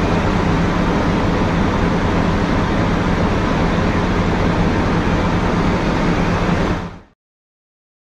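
Steady, loud machinery noise of a plant hall with horizontal vacuum belt filters running: an even rushing din over a low steady hum. It cuts off suddenly to silence near the end.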